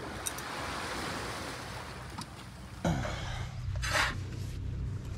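Steady rushing noise of wind and water. About three seconds in it cuts abruptly to a low steady hum, with a loud rustle or scrape and a few sharp knocks.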